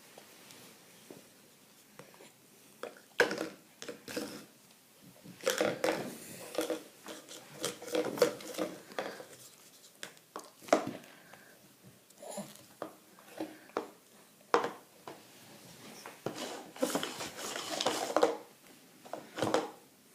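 Chewing and biting sounds: irregular wet clicks, smacks and crunchy bites, coming in clusters.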